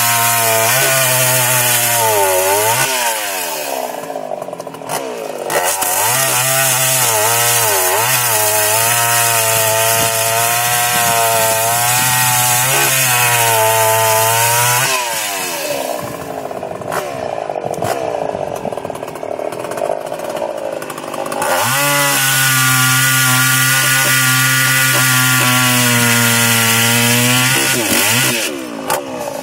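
Older two-stroke chainsaw cutting wood. Its engine pitch sags and recovers as the chain bites, falls back to a quieter, lower run twice, and revs up again to a steady high speed. The saw runs at lower revs than newer saws, with a lot of torque.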